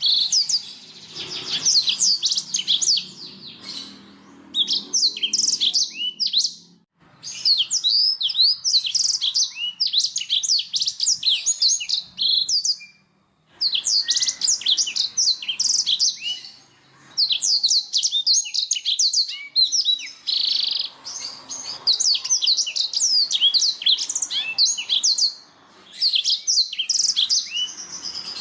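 Domestic canary singing: long runs of fast, high trills and chirps, with short breaks about seven and thirteen seconds in. A songbird lure recording of the kind played to caged birds to get them singing.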